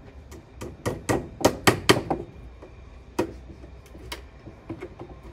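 Hammer tapping tacks through a sash cord into the side of a wooden window sash: a quick run of sharp taps, loudest in the first couple of seconds, then a few lighter, sparser ones.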